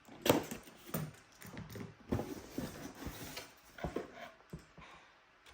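Unboxing handling noise: irregular knocks and rustles of cardboard and plastic packaging being opened and moved, with one sharper knock a little after the start.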